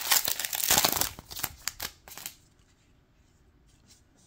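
Foil trading-card pack crinkling as a stack of cards is slid out of it, a dense rustle with quick clicks for about the first two seconds; then it goes quiet apart from a few faint ticks.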